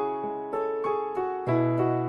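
Background piano music: a slow melody of single struck notes, about three a second, with a low bass note entering about one and a half seconds in.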